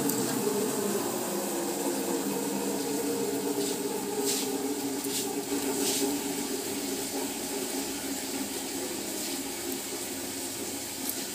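Steady rushing noise of running water, with a few faint clicks about four to six seconds in.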